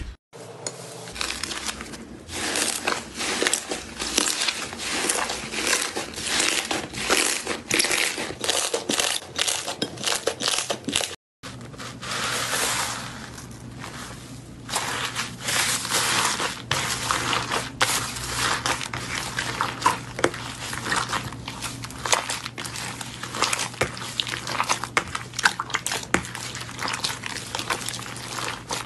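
Hands kneading and squishing slime in a glass bowl, first fluffy white cloud slime, then pink and purple slime packed with foam beads, making dense crackling, popping clicks. The sound cuts out briefly about eleven seconds in, where the clip changes.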